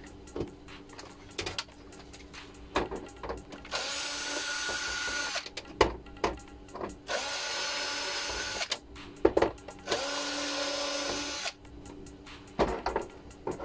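Makita cordless drill-driver backing screws out of a TV's back cover: three runs of motor whir, each about a second and a half long, with clicks and knocks of handling between them.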